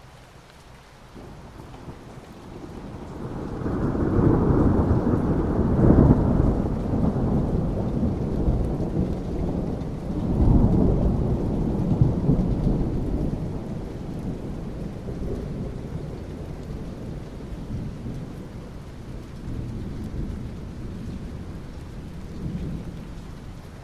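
Rolling thunder over steady soft rain on asphalt. The low rumble builds a few seconds in, swells twice, then slowly fades back under the rain.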